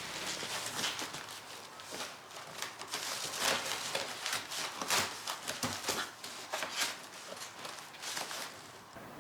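A series of irregular clicks and knocks, with the sharpest ones about three and a half and five seconds in.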